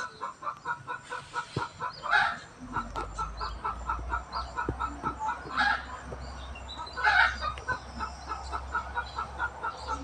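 A chicken clucking in a fast, steady rhythm, about four or five clucks a second, with a few louder, harsher calls mixed in.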